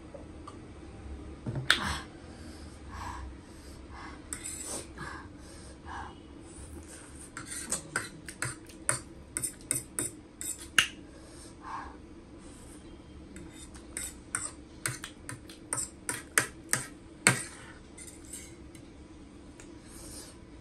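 Metal fork clinking and scraping against a ceramic plate while gathering noodles: irregular sharp clicks, coming in quick runs through the middle and later part, over a faint steady hum.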